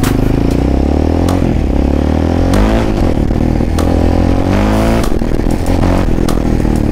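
Sport quad bike engine pulling away and accelerating, its pitch climbing and dropping back several times as it revs up through the gears.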